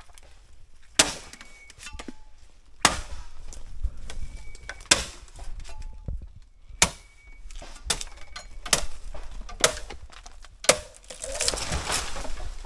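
Machete chopping into the base of a bamboo stalk: about eight sharp strikes, one every second or two, then a longer rustling noise near the end.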